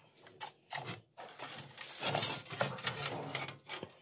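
A metal baking tray being pushed across an oven's gritty floor with a long metal rod, scraping with several clanks and knocks.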